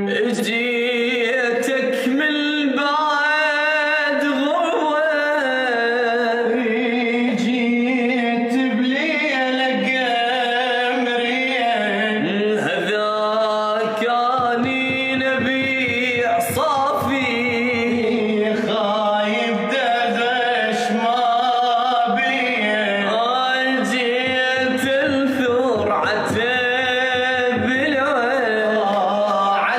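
A man singing an Arabic song solo, with a wavering melody and long held notes.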